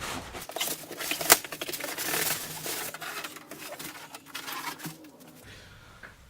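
Polystyrene packing being pulled out of a cardboard box: scraping, rustling and tearing, with one sharp crack about a second in, dying away near the end.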